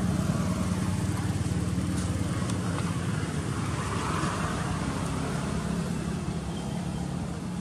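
Steady low hum of a motor vehicle's engine running, fading slightly toward the end.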